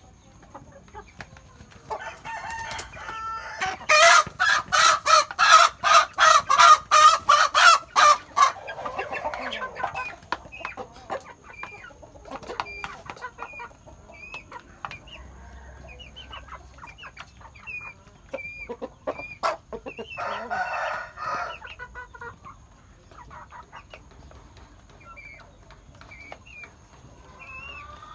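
Chickens calling while they feed from a bowl of grain: a loud run of rapid, evenly repeated cackles, about three a second, from about four to eight seconds in, and another short burst of calls around twenty seconds. Light pecking taps and short calls fill the gaps.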